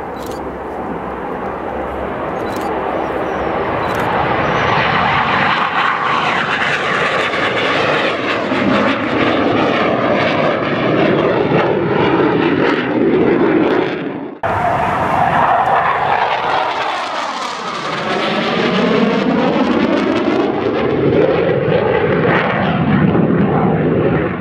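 BAE Hawk jet trainer's single Adour turbofan engine running hard as it takes off and flies past, the jet noise swelling and then sweeping up and down in a swirling, phasing way as the aircraft moves. The sound breaks off for an instant about two-thirds of the way through, then carries on.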